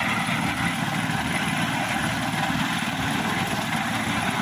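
An engine running steadily at idle, with a fast, even low pulse.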